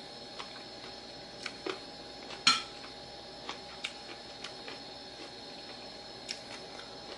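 Metal spoon clinking against a ceramic plate while eating: a few light clicks, with one sharper clink about two and a half seconds in, over a faint steady hum.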